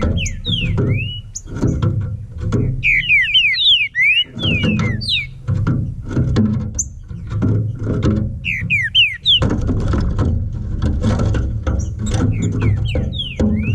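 Green-winged saltator (trinca-ferro) singing in clusters of short, slurred whistles, over background music with a steady beat.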